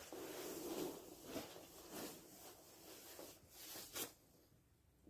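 Soft rustling and scraping from something being handled, with a few light knocks, stopping about four seconds in.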